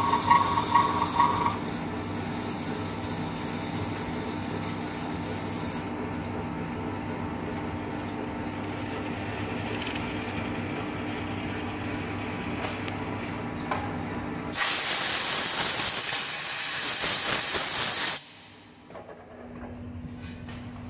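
Lathe boring the inside of a steel hydraulic cylinder head with a boring bar: the spindle and cut run steadily with a low hum, and a pulsing tone from the cut fades out after the first second or so. About two-thirds of the way in comes a loud, even hiss of compressed air lasting about four seconds, which stops suddenly, leaving a faint low machine hum.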